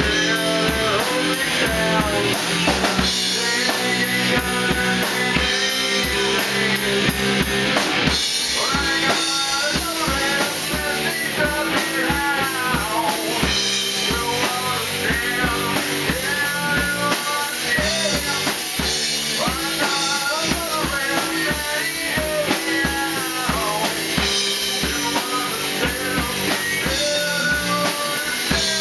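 Rock band playing live: a drum kit, electric guitar and electric bass, with a male singer on the vocal microphone.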